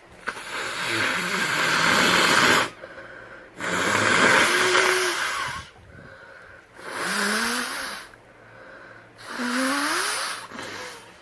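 A person blowing their nose hard four times, each blow a long rushing gust, the first about two and a half seconds long and the later ones shorter. The last two blows carry a short rising squeaky tone.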